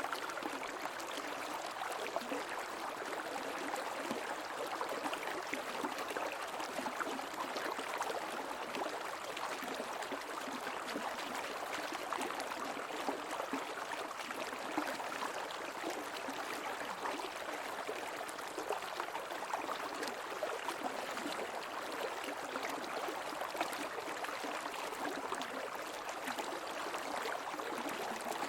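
A creek's water flowing and babbling steadily.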